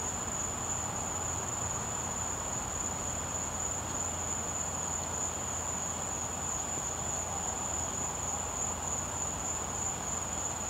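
Crickets trilling steadily at one high pitch, over a low steady hum.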